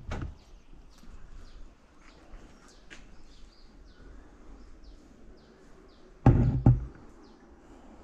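Two loud knocks in quick succession about six seconds in, over faint bird chirping, with a couple of light clicks at the start.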